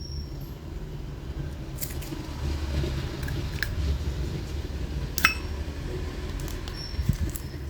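Vintage brass Zippo lighter clicking and clinking as it is handled: a few sharp metallic clicks with a brief ring, the loudest about five seconds in and several more near the end, over a low background rumble.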